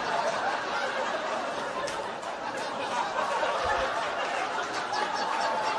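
Audience laughing, a steady wash of laughter from a crowd that holds at much the same level throughout.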